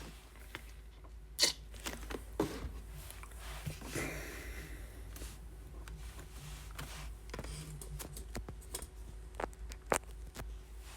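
Scattered clicks and light rustling of small objects being handled on a tabletop, with a sharper click about a second and a half in and another near the end.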